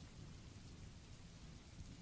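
Faint, steady rain hiss with a low rumble underneath.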